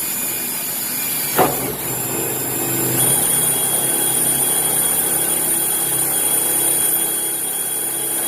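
Electric drill running as it bores a 1/8-inch hole through the Camaro's quarter-panel sheet metal: a steady motor whine with a brief sharp sound about a second and a half in, and the motor's pitch stepping up about three seconds in.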